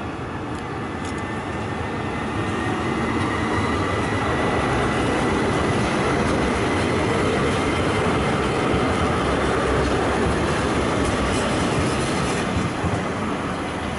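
A Düwag articulated tram passing close by on street track. Its rolling rumble and wheel-on-rail noise swell to a peak around the middle and ease off a little toward the end. A faint high whine runs through the first half, and there are a few light clicks near the end.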